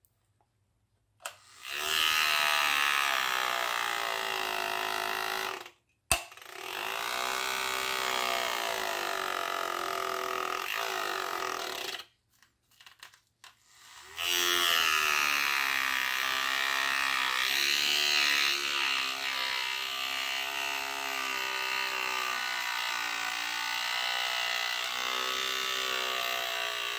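Small electric motor of a battery-powered spinning-magnet flapper paddle boat, running with a buzzing whine whose pitch wavers up and down. It starts after about a second and a half, stops briefly about six seconds in and again around twelve seconds, then runs on. The motor is running hot and, by its sound, a part is rubbing where it shouldn't.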